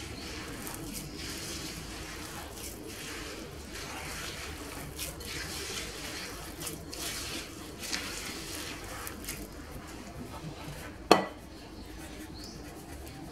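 Hands mixing and kneading a crumbly sesame-and-flour dough in a glass bowl: repeated soft scraping and rustling strokes, with one sharp knock against the bowl about eleven seconds in.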